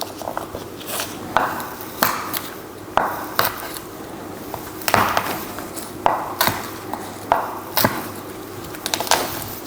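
About a dozen sharp knocks on a chopping board at irregular intervals, from preparing garlic cloves with a knife.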